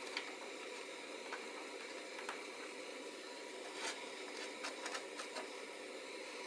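Small cut steel blocks being set on end along a steel bar on a metal bench: a few faint, scattered metal clicks and taps over a low steady hiss.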